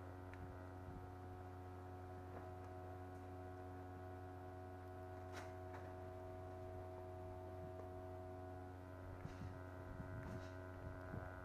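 Low, steady electrical hum made of several constant tones. A faint click comes about five seconds in, and some low rustling handling noise near the end.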